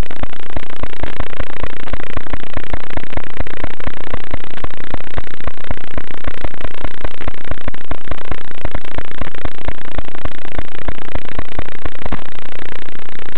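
Loud, clipped crackling buzz of dense rapid clicks with no clear pitch, steady throughout: the audio-channel static of an analog FPV video receiver recording a tiny whoop drone's flight.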